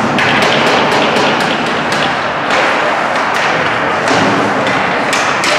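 Ice hockey play in a rink: a quick run of sharp clacks and knocks from sticks, puck and boards, over steady arena noise.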